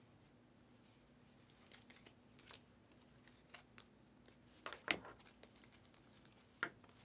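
Faint rustling and clicking of basketball trading cards being slid and flipped by hand, with a sharper card snap just before five seconds in. A faint steady hum runs underneath.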